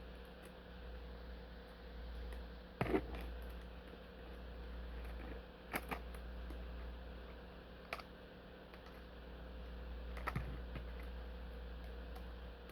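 Box cutter working on tough plastic blister packaging: faint scraping with scattered sharp clicks and crackles of the plastic, a few louder ones spread through, over a steady low hum.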